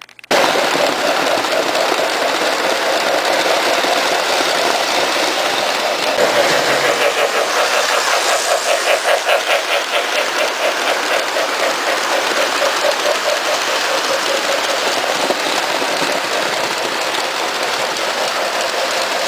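Model trains running on the layout's track: a steady rumble of wheels and motors on the rails, with a quick rhythmic clicking for several seconds in the middle.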